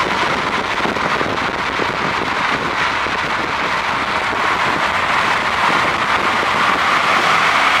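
Car driving on the road: a steady rush of tyre and wind noise.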